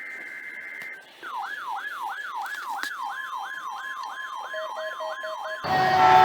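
Electronic siren in a fast yelp, its pitch sweeping up and down about three times a second, after a steady high beep in the first second. Near the end a much louder blast made of several steady tones cuts in.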